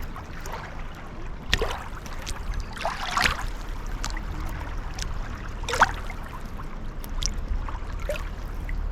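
Water trickling and splashing in irregular spurts, the strongest about a second and a half, three and six seconds in, over a steady low rumble.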